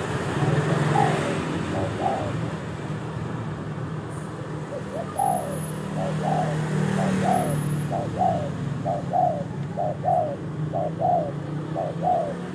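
Spotted dove cooing: a run of short, falling coo notes, about two a second, starting about five seconds in, over a steady low hum.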